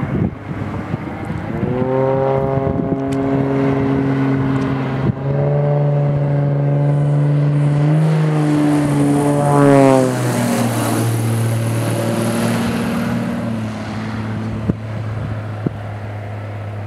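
Extra 330 aerobatic plane's piston engine and propeller droning as it flies past low. The pitch falls sharply about ten seconds in as it passes closest and loudest. It then runs on at a lower, steady note as it drops toward the runway.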